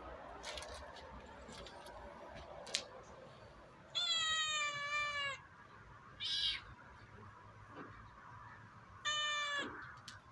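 A cat meowing: a long meow about four seconds in, a brief higher call two seconds later, and a shorter meow near the end, each meow falling slightly in pitch at its close. A single sharp click comes just before the first meow.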